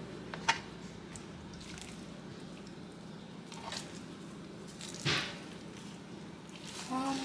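Raw whole chicken being handled and turned on a plastic cutting board: faint wet squishing with a few soft clicks, and a short louder rustle about five seconds in. A voice starts humming near the end.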